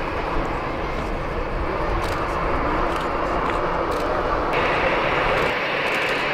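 Steady, distant jet-engine noise from a taxiing Boeing 747-4H6 LCF Dreamlifter's four turbofans, an even hiss over a low background.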